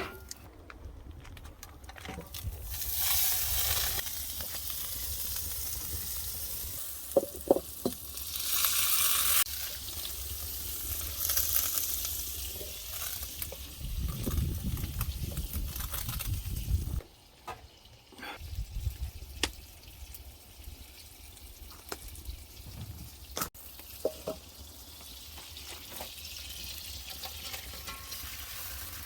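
Shrimp frying in a hot pan, sizzling in waves that swell loudest about three and nine seconds in, with scattered clicks of a utensil.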